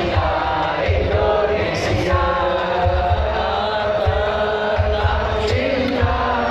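Islamic sholawat, devotional songs in praise of the Prophet, chanted by a large crowd of voices over loudspeakers, with drum beats underneath.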